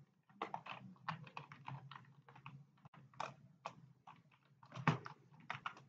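Typing on a computer keyboard: a quick, irregular run of faint keystroke clicks, with one louder stroke about five seconds in.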